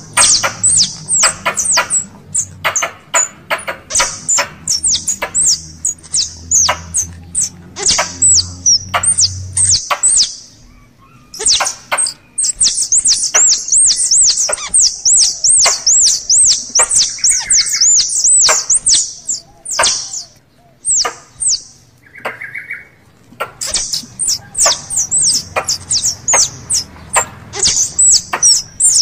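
Squirrel calls from a hunters' lure recording: rapid runs of high, sharp chips and chirps that stop briefly about ten and twenty seconds in.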